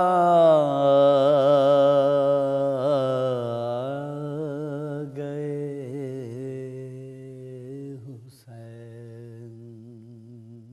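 A man's voice chanting devotional Urdu verse, holding one long sung note whose pitch wavers as it is sustained and slowly fades. It breaks off about eight seconds in, and a second, softer held note follows.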